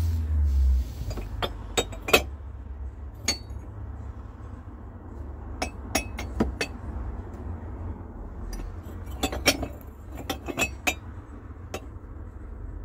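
Ceramic mugs clinking against each other as they are lifted and shifted about in a crate of crockery: scattered sharp clinks coming in little clusters, over a low steady rumble, with a dull low bump at the start.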